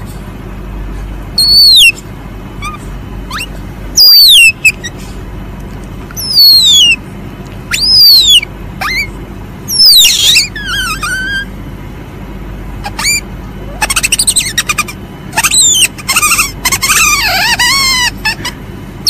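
Palm civet (musang) calling: a series of shrill, high-pitched squeals, each sliding quickly downward, about every one to two seconds. Near the end the calls come faster and tangle into a chattering run that dips lower in pitch.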